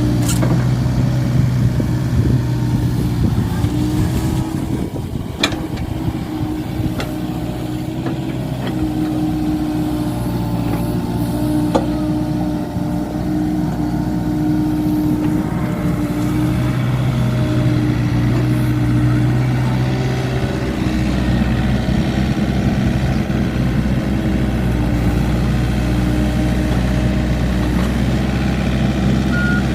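Komatsu PC45 mini excavator's diesel engine running steadily, its note shifting a little as the hydraulics take load, with a few short sharp knocks.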